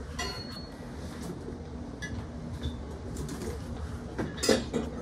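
Short clinks and rattles of small hard objects being handled, a few scattered ones at first and a louder cluster of clatter near the end.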